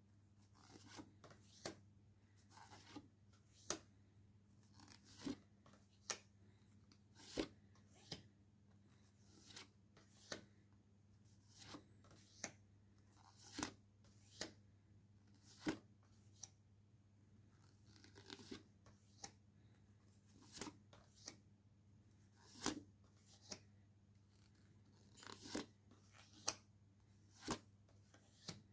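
Paper postcards being flipped through by hand, each card slid off the front of the stack and laid on a pile: short papery snaps and slides every second or so, often two close together.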